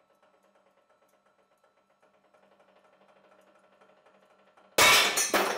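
Hydraulic press running faintly with a steady fast ticking as it loads a titanium bolt in tension, then the bolt snaps: a sudden loud bang near the end, with a second hit about half a second later, the noise lasting just over a second.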